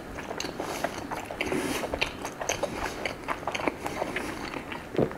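A person chewing a mouthful of savoury crepe close to the microphone, with many small, irregular mouth and food clicks.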